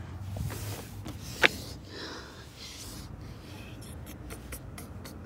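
Quiet phone-microphone handling noise: faint rustling as the phone moves against clothing, with one sharp click about a second and a half in and a few faint ticks near the end.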